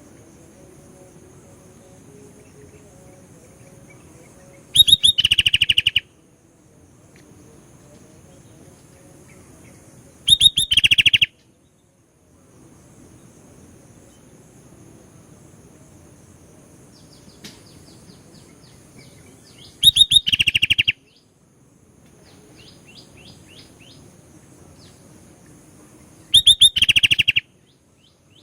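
Sooty-headed bulbul singing in four loud, quick bursts of rapid repeated notes, each about a second long, spaced several seconds apart. Fainter short chirps come between the bursts over a faint steady high-pitched tone.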